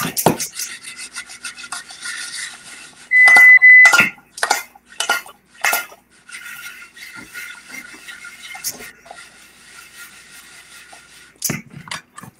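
Pots, pans and utensils clattering at a stove, with several sharp knocks. About three seconds in, a loud electronic beep sounds as one steady high tone lasting about a second. Between the clanks runs a faint, rapid ticking hum.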